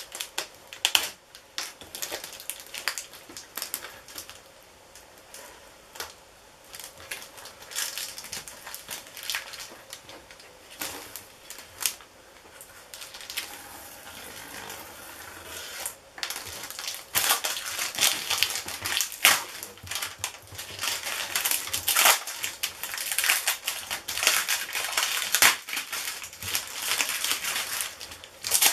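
Plastic vacuum-bagging film crinkling and crackling as hands handle and work it off a cured composite tube, in quick irregular rustles that grow louder and busier a little past the middle.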